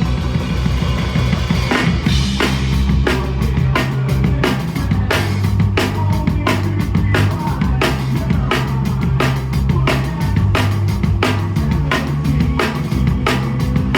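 Live rock band playing, the drum kit prominent with steady kick and snare hits, about two to three a second, over held low bass notes.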